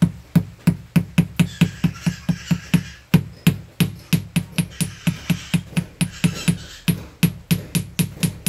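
A hammer tapping lightly and steadily, about four strikes a second, on a small metal splice tube resting on a metal base. The taps crimp the tube shut around the wires inside it.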